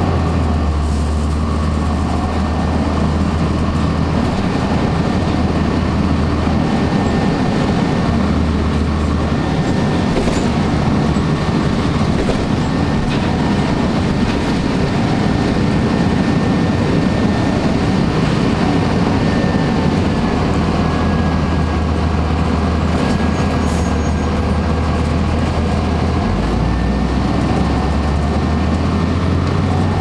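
Blue Bird CS transit bus heard from inside the cabin while underway: its Cummins ISC diesel engine running and road noise. The low engine note steps up and down a few times. A thin, steady high whine sits above the rumble and dips slightly in pitch for a few seconds past the middle.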